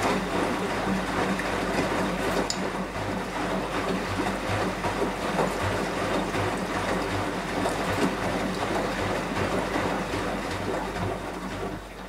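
Beko WMY 71483 LMB2 front-loading washing machine in its wash phase: the drum tumbles wet laundry, with water sloshing over a low, pulsing hum from its inverter motor. The sound falls away near the end as the tumbling stops.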